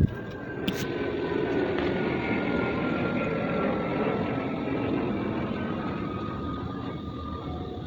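Sound effect of a vehicle, likely an aircraft passing: a steady rumble with a faint whine that slowly falls in pitch.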